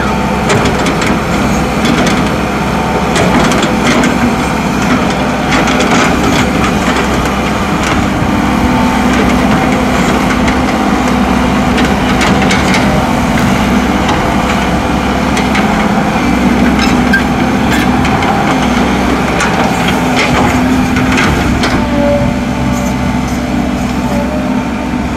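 Heavy diesel engines of an excavator and dump trucks running steadily, with scattered sharp knocks and clanks.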